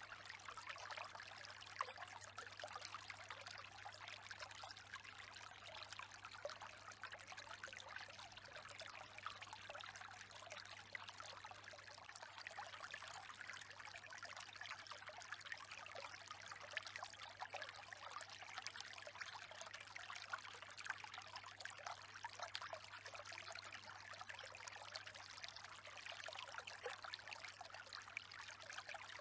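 Faint, steady trickling of flowing water, with a steady low hum underneath.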